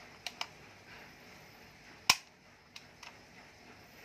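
Sharp clicks and knocks from a molded-case circuit breaker and contactor being handled, with one loud sharp click about two seconds in and a few fainter ones around it.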